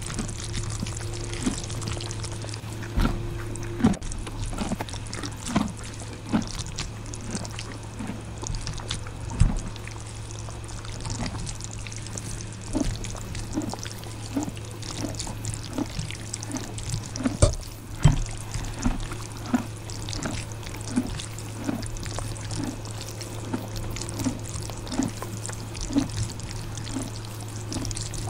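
Close-up wet chewing of spicy ramen noodles, a soft rhythmic chew about three times every two seconds, with a few louder clicks of a metal fork against the plate, over a low steady hum.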